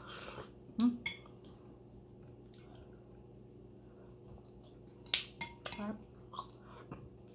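Metal spoon and fork clinking and scraping against a ceramic plate and mussel shells while eating, with a few sharp clinks about a second in and a quick cluster of clinks about five seconds in.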